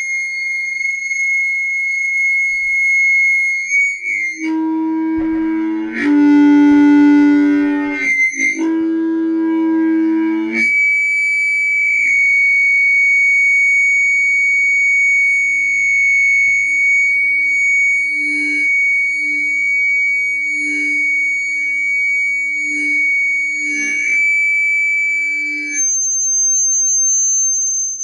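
Audio feedback from a stereo speaker: a loud, steady high-pitched squeal that drops about four seconds in to a lower, buzzy howl, climbs back to the high squeal about ten seconds in, then near the end jumps to a thin, higher whistle.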